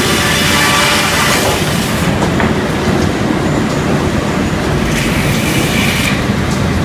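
Helle circle sawmill running loudly, a dense clatter of saw and carriage machinery. Its bright high hiss drops away about two seconds in and briefly comes back near the end, as the cut through the Douglas fir log starts and stops.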